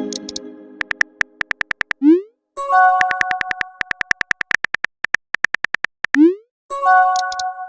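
Synthesized electronic tune: runs of fast, even ticking clicks, about eight a second, over held steady tones, broken up by short rising chirps near the middle and near the end.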